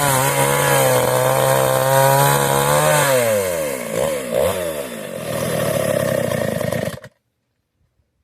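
Kawashima petrol chainsaw running at high revs; its revs fall about three seconds in and dip and surge twice before steadying again, and the sound cuts off abruptly about seven seconds in.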